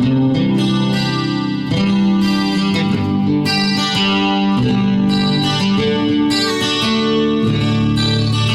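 Acoustic guitar strummed through its built-in effects, chords changing about every second and ringing on between strums.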